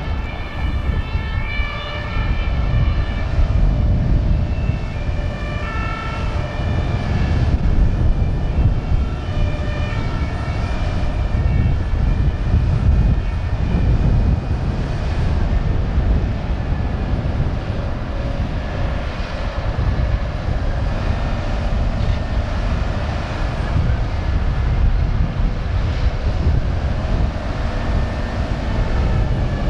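Deep, steady engine rumble throughout, with a two-tone emergency siren sounding over it during the first several seconds before fading out.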